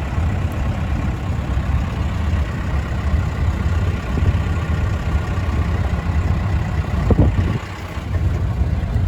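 Motor vehicle engine running steadily with a deep rumble, briefly louder about seven seconds in and then dipping for a moment.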